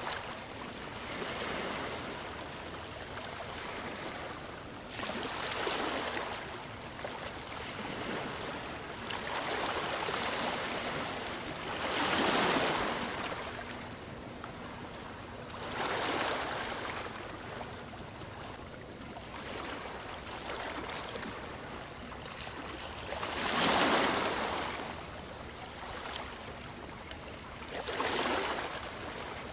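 Ocean waves washing onto a shore, each wave swelling into a hiss and fading away every few seconds at an irregular pace, with two louder breakers about twelve and twenty-four seconds in.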